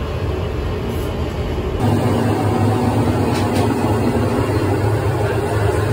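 Steady rumbling noise of a gas stove's burners heating soup in metal plates. It gets louder about two seconds in.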